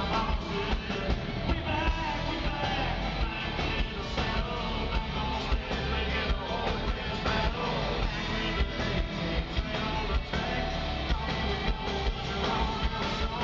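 Live country-rock band playing loudly, electric guitars and drums under a male lead vocalist singing into a microphone, recorded from the front of the crowd.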